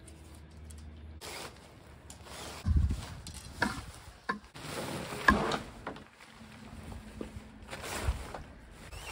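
Nylon tent fabric rustling and crinkling as a two-person dome tent is handled and raised on its flexible poles, with a few sharp clicks from the poles around the middle.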